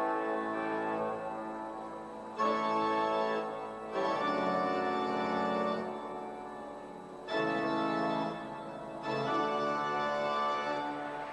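Pipe organ playing sustained full chords, with louder, brighter registrations entering abruptly every few seconds.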